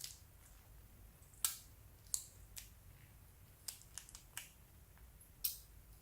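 A scattered series of short, sharp clicks or snips, about eight of them at uneven intervals, the loudest about a second and a half in.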